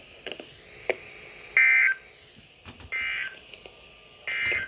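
Three short bursts of Emergency Alert System SAME data tones, a little over a second apart: the end-of-message signal that closes an alert broadcast. A few faint clicks come in between.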